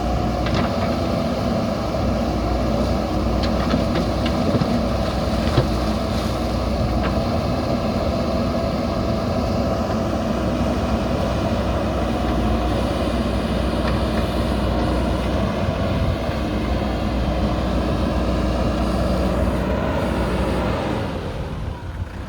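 JCB backhoe loader's diesel engine running steadily while it works, with a few faint knocks early on; the engine sound drops near the end.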